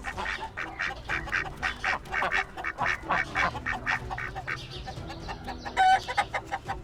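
Ducks quacking in a rapid run of short calls, thinning out after about three and a half seconds, with one louder call about six seconds in.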